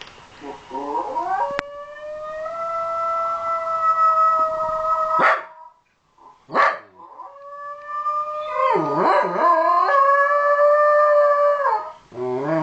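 Shetland sheepdog howling: a few short rising calls lead into a long held howl, then after a brief break a second long howl that wavers in the middle before dropping off, with another starting near the end.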